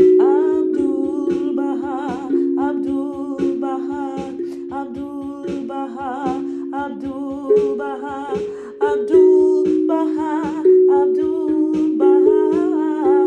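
Feeltone Zenko steel tongue drum, tuned to 432 Hz, struck with mallets, its notes ringing on and overlapping. A woman hums a wavering, wordless melody over the drum.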